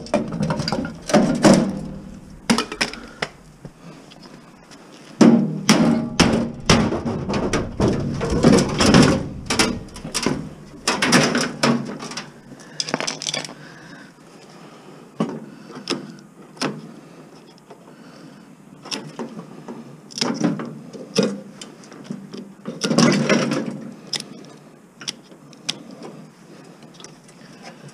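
Irregular clanks, knocks and rattles of scrap metal parts being handled and sorted by hand, in several bursts of clatter with quieter gaps between.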